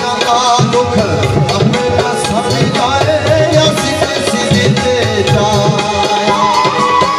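Live geet/ghazal folk music: a bansuri bamboo flute plays a gliding melody over a steady tabla rhythm and harmonium.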